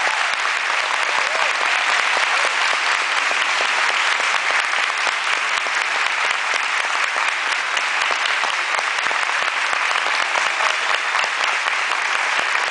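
Audience applause: many hands clapping in a dense, steady patter that holds at an even level throughout.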